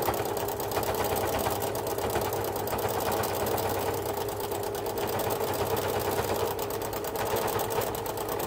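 Domestic sewing machine running steadily at speed, the needle stitching rapidly and evenly in free-motion mode with the feed dogs lowered.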